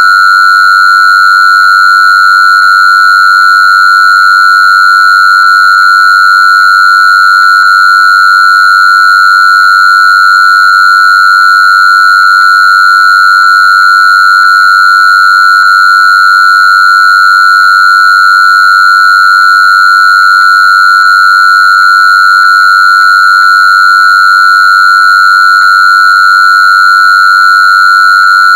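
A loud, steady electronic tone held at one pitch without a break, with fainter overtones higher up.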